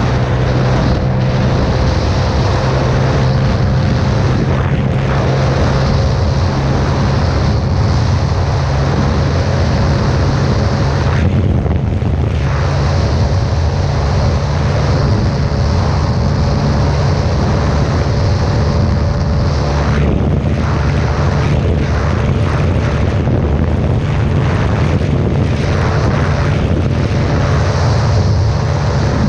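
Yamaha motorcycle engine running at high, steady revs at speed near its top speed, its hum nudging up slightly in pitch over the first few seconds and then holding. Heavy wind rush on the microphone runs over it.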